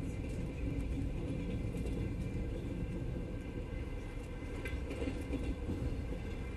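Passenger train running, heard from inside the carriage: a steady low rumble of the wheels on the rails, with a few faint clicks.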